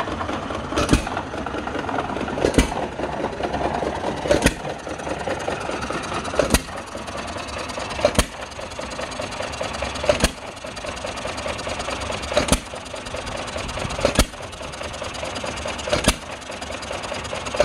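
John Deere hit-and-miss engine running, belted to a 5-gallon ice cream freezer. It fires with a sharp bang about every two seconds and coasts between shots over a steady mechanical clatter, as its governor skips firing while the flywheels hold speed.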